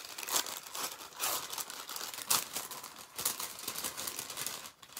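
Paper gift bag crinkling and rustling as it is opened and its contents handled, in irregular crackles with a few sharper ones.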